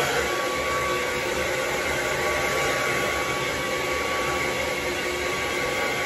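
Revlon 1875W infrared hair dryer running steadily on its warm setting: a rushing blow of air with a thin steady whine in it.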